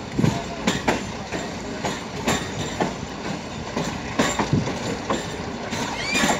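Passenger train coaches rolling over jointed track, the wheels knocking irregularly over rail joints above a steady rumble, heard through an open coach window. A few short high squeaks come near the end.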